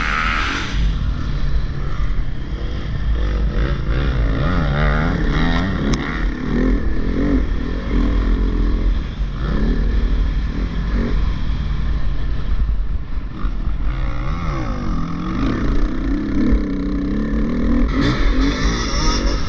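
Dirt bike engine heard up close from the rider's helmet, its pitch rising and falling over and over as the throttle opens and closes and the gears change, over a steady low rumble.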